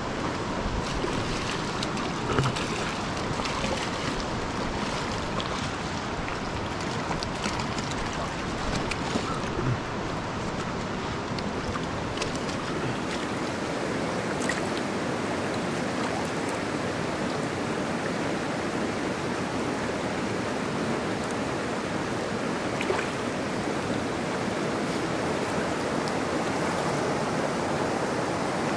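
Steady rush of river water running over rocks, with a few faint light clicks now and then.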